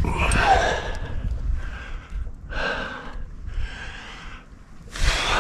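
A climber breathing hard: about five loud, heavy breaths, roughly one a second.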